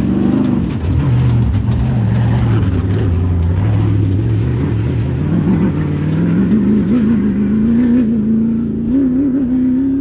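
Rally vehicle's engine pulling hard at low revs, then revving up steadily from about halfway and holding the higher pitch.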